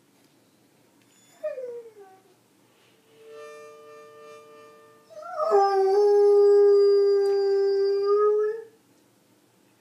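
Beagle howling along with a harmonica: a short falling whine about a second in, then a quieter held harmonica note, then a long steady howl of about three seconds over the harmonica that stops sharply near the end.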